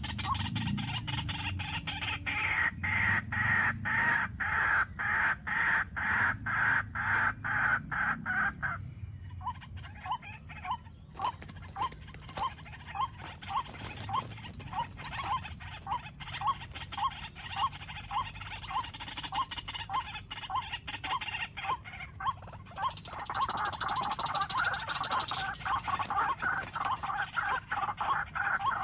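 White-breasted waterhen (dahuk) calling: a long run of short, even notes repeated about twice a second. A harsher, denser chatter rides over the notes near the start and again near the end.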